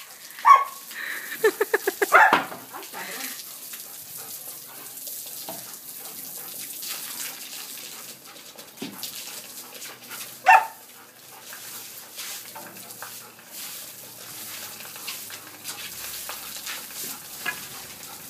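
Old English Sheepdog barking as it plays in a water spray: a bark about half a second in, a quick run of yapping barks a second or two later, and another single bark about ten seconds in. Under the barks runs a steady hiss from the spray of water.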